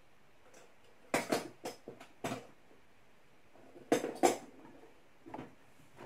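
Loose metal keys clinking and clattering as they are rummaged through in a box: sharp clinks in short clusters, with a pause of over a second between the groups.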